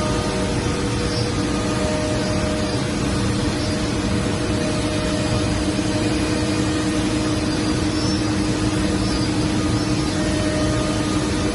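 CNC router running, giving a steady mechanical whir with a constant low hum that holds at one level and pitch throughout.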